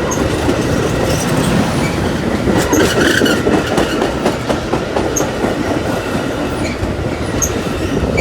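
Train passing close by: a loud, steady rumble of steel wheels on the rails with a rapid run of clicks from the wheels crossing rail joints.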